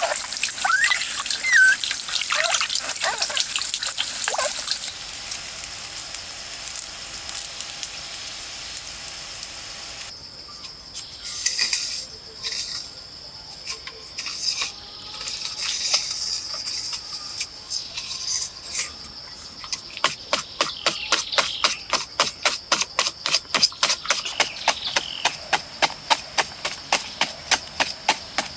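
Water trickling from a small fountain spout, with a puppy whining a few times near the start. Later a wooden digging stick scrapes and chops into soil, irregularly at first and then in quick regular strikes, about three a second, through the second half.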